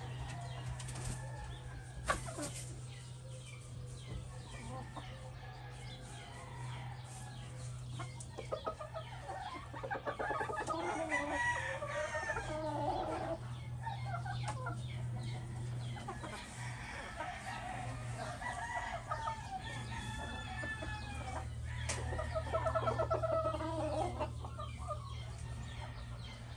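A rooster and hens clucking and calling, with two louder bouts of calling, one about ten seconds in and one near the end, the second the loudest. A steady low hum runs underneath.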